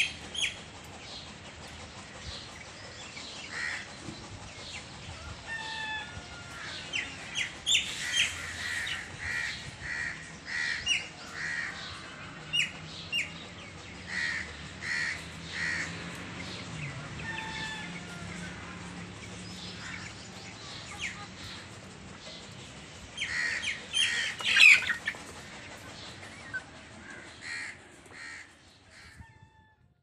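Young Aseel and broiler chickens peeping: short high calls, often in quick runs of three or four, the loudest cluster about 24 seconds in.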